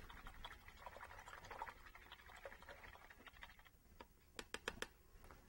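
Paintbrush being scrubbed clean: faint rapid scratching of the bristles, then a quick run of sharp taps about four and a half seconds in.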